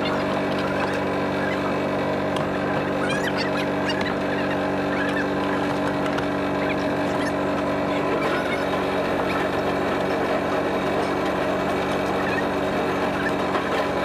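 Fishing boat's engine running steadily at a constant speed, with a few brief high chirps about three seconds in.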